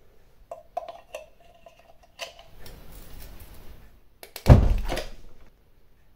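Gigabyte Aorus AD27QD monitor exploding: after several clicks with a short electrical buzz and then a hiss, a single loud bang about four and a half seconds in, fading over about a second. The monitor had been making electronic noises and giving off a burning smell after being switched on, a sign of a failing component.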